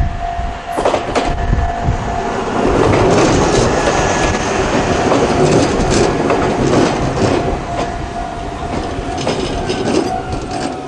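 A Joshin Electric Railway train passes over the level crossing, loudest from about two and a half seconds in until near the end, its wheels clacking over the rail joints. Under it the crossing's electronic warning bell (Tokai-type tone) rings steadily, and strong wind buffets the microphone.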